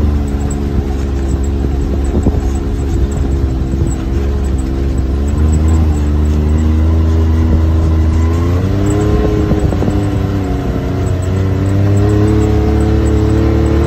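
Side-by-side UTV engine running while under way on a dirt trail, its pitch rising as it speeds up about eight seconds in and again near the end, over a low rumble.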